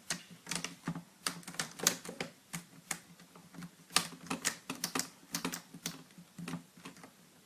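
Plastic screen bezel of a netbook being pressed back onto the lid, its clips snapping into place in a string of irregular sharp plastic clicks, a few a second, the loudest about two and four seconds in.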